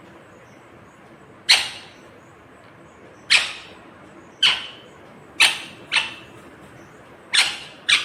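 Indian ringneck parakeet giving short, sharp, shrill calls, about seven of them, irregularly spaced, some in quick pairs.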